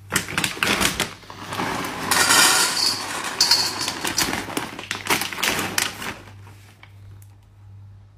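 Dry kibble poured into a stainless steel dog bowl: a dense clattering rattle of pellets striking metal and each other, loudest in the middle of the pour, stopping about six seconds in.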